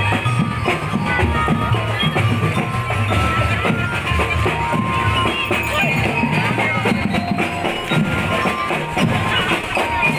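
Parade marching band playing music, with a steady drum beat under a melody.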